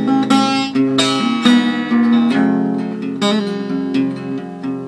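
Acoustic guitar played in open position around a C chord, picking the 4-3-2 movement: the top note moves between the suspended fourth, the third and the second over the chord. The notes are plucked one after another and left ringing.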